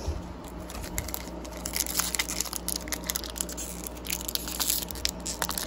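Crinkling and tearing of a Pokémon booster pack's foil wrapper being handled and ripped open: a dense run of sharp crackles and rustles, busiest about two seconds in and again near the end.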